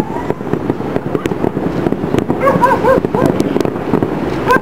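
Fireworks over the city popping and crackling in a dense, continuous stream, with a dog barking a quick run of about four barks halfway through and again near the end.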